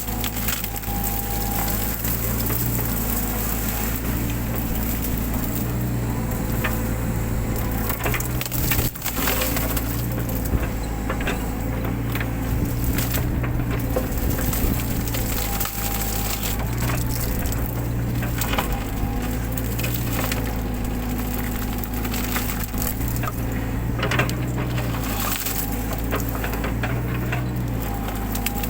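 Mini excavator's diesel engine running, its pitch stepping up and down as the hydraulics take load, while brush and woody undergrowth crack and snap under the machine now and then.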